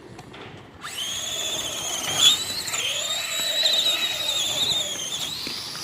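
A small RC truck's electric motor whining as it drives off: a high, slightly wavering whine that starts about a second in and holds for several seconds before easing near the end.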